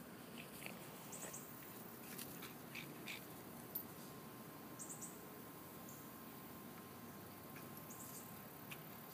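Quiet outdoor yard ambience with a few short, high chirps, about three times.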